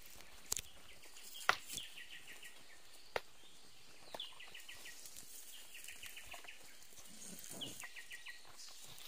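Large fresh banana leaves being pressed and spread over a lean-to, rustling, with a few sharp crackles, the loudest about a second and a half in. Short series of rapid, high chirps sound now and then in the background.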